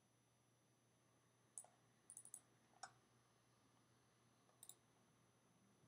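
Near silence broken by faint computer mouse and keyboard clicks: one about a second and a half in, a quick run of three or four just after two seconds, another near three seconds, and a double click near the end.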